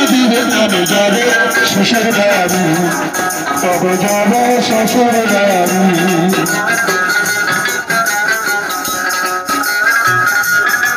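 Folk song from a small street band: a man singing through a microphone and small amplifier, with a plucked long-necked lute and a barrel drum. The voice drops out about two-thirds of the way through, leaving the plucked strings and drum.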